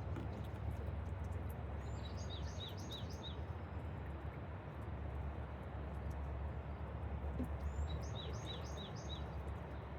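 Steady hiss of heavy rain with a low rumble underneath. A bird sings twice over it, each time a quick phrase of about four high, falling notes, about two seconds in and again near the end.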